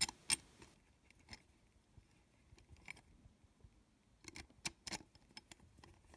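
Small screwdriver turning tiny screws in the chrome metal chassis of a Sennheiser SKM 5000 microphone: faint, scattered metallic clicks and ticks, with a quick cluster of clicks about four to five seconds in.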